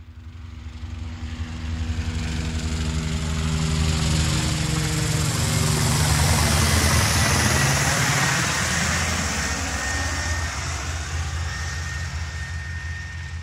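An aircraft passing by: a steady engine hum that swells to a peak about halfway through and then fades away.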